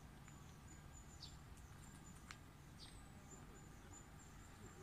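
Near silence, with a few faint high chirps.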